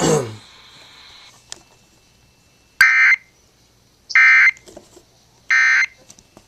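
Emergency Alert System end-of-message code over FM radio: three short, harsh digital data bursts about 1.4 seconds apart, signalling that the alert broadcast is over.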